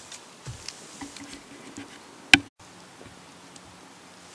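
Quiet outdoor background with faint scattered ticks and crackles. About two seconds in, a single sharp click is followed by a brief dropout where the footage is cut.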